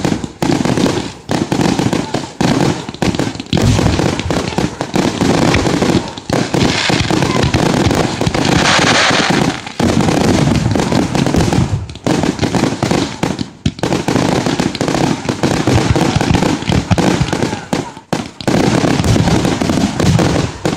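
Fireworks finale barrage: aerial shells launching and bursting in rapid, overlapping booms and pops. Near the middle come two stretches of crackling hiss.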